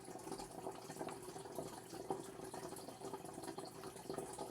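Steady trickling and dripping water in a turtle tank, with many small drips and splashes.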